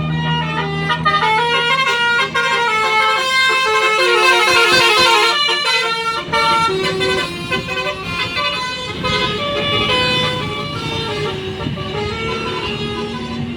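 Bus telolet horn (basuri-type multi-tone musical air horn) playing a tune of quick stepped notes, several tones sounding together, over the bus's engine running.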